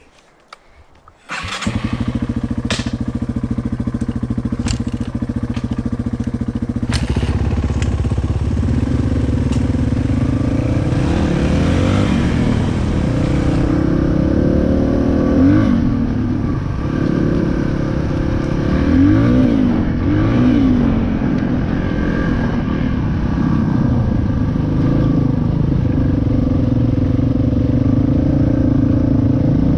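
Dirt bike engine cuts in suddenly about a second and a half in and runs steadily, with a few sharp clicks early on. It is revved up and down briefly near the middle and twice more a few seconds later.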